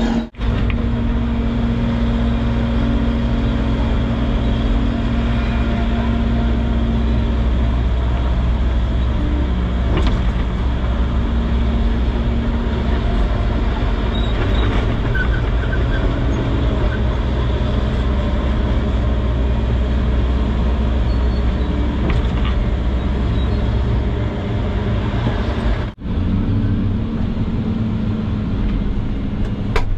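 Excavator engine running under load with its hydraulics working as the bucket digs soil, heard from inside the cab as a steady low drone. The sound drops out briefly twice.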